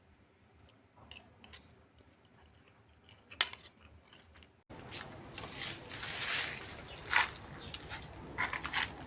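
Faint clicks and handling noise, with one sharp click about three and a half seconds in. Then, abruptly, a louder bed of rustling with scattered knocks and clicks.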